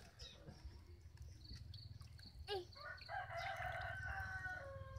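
A rooster crowing once: a short rising note at about two and a half seconds, then a long held call for about a second and a half. A faint high insect chirping pulses on and off.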